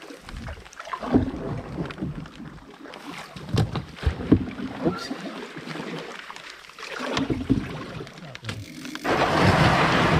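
Canoe paddling: paddle strokes splashing, with knocks of the paddle on the hull. About nine seconds in, a loud, steady grinding starts as the canoe's hull runs up onto a gravel shore.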